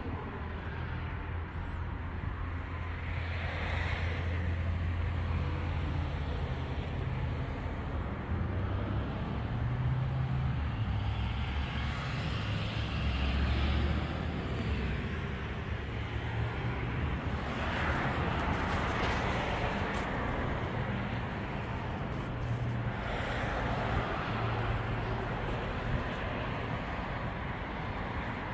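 Road traffic: a steady low rumble with vehicles swelling past every several seconds.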